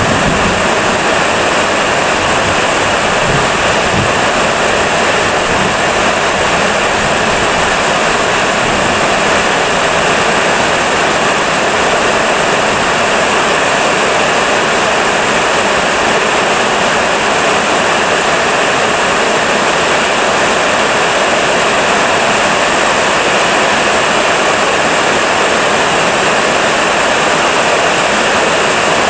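Heavy rain falling steadily: a dense, even hiss of downpour that holds at the same level throughout.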